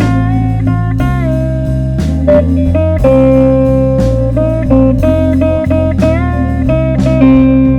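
Blues music: guitar playing a slow blues over steady bass notes, with bent notes.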